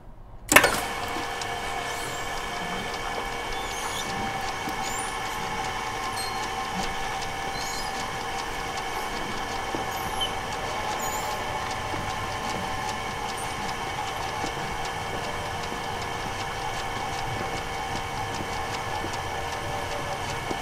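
Motorized steel roll-up door opening: a loud clunk as it starts about half a second in, then a steady motor hum with a light rattle as the slatted curtain winds up.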